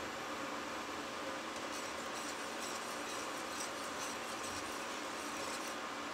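Steady whirring hum of a running induction hob with its cooling fan, under light scraping and ticking of a wire whisk stirring milk in a stainless steel saucepan.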